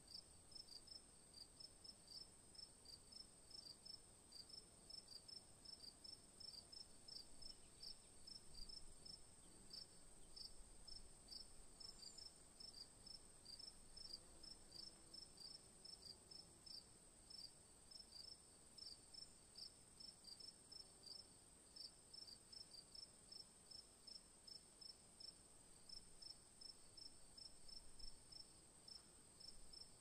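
Faint insect chirping, likely a cricket, in short even chirps a few times a second over a steady high-pitched hum.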